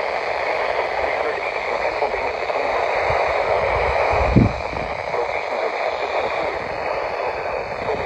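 Midland weather radio's speaker hissing with steady static on a weak NOAA Weather Radio channel. A brief low thump comes about four and a half seconds in.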